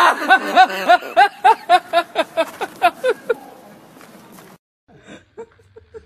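A person laughing hard in a rapid string of short ha-ha bursts, about four a second, that stops a little after three seconds in.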